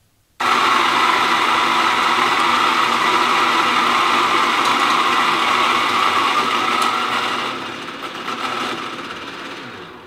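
Electric burr coffee grinder running and grinding coffee beans for an espresso shot. The motor starts about half a second in, runs steadily, then grows quieter over the last two seconds or so.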